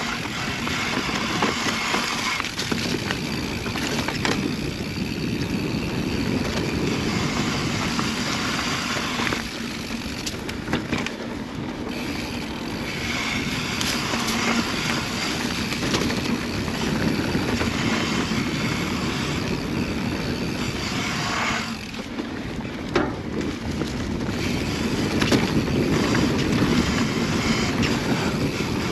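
Mountain bike riding fast down dirt singletrack: a steady rush of tyres on dirt and wind on the camera microphone, with a couple of sharp knocks as the bike hits bumps.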